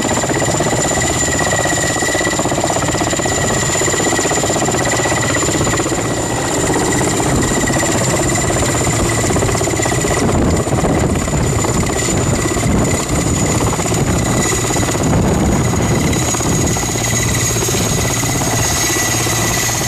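Mi-8 helicopter running on the ground with its main rotor turning. Its twin turboshaft engines and rotor make a loud, steady rumble, with a high turbine whine held on two steady pitches.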